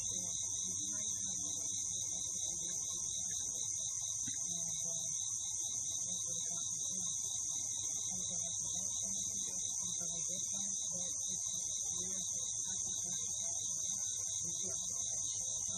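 A chorus of night insects: a steady high-pitched drone with a rapid pulsing trill just below it, running without a break.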